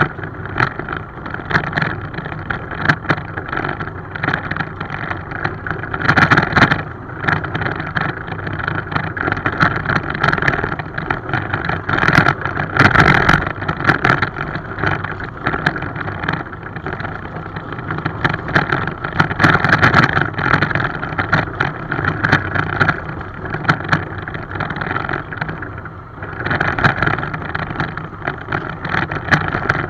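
A 7¼ inch gauge miniature railway train running along the track: steady running noise from the locomotive with its steel wheels clattering on the rails, full of sharp clicks, swelling louder several times.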